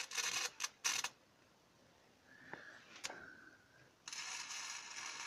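Stick-welding arc from a 2 mm electrode fed directly by 24 V solar panels: a crackling hiss that sputters and breaks off several times in the first second. It goes quiet, then is struck again about four seconds in and burns as a steady hiss. The welder puts the unstable arc down to the panels giving current but too little voltage.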